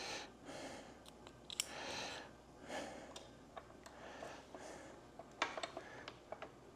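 Faint clicks and light taps of small engine parts and linkage being handled, with soft breathing.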